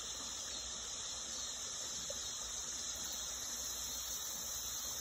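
Steady, high-pitched chorus of insects such as crickets, an unbroken hiss with no single calls standing out.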